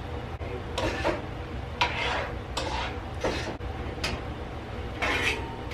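A utensil scraping and stirring chopped celery, onions and carrots in butter in a skillet, in separate strokes about once a second, over a steady low hum.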